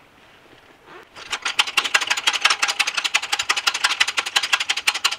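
Hydraulic shop press being pumped by hand: a fast, steady clicking and rattling of about ten clicks a second starts about a second in as the bottle jack is worked to load the press.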